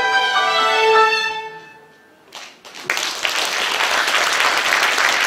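A violin ensemble of children and adults plays its closing notes, which fade away by about two seconds in. After a brief pause an audience starts applauding about three seconds in.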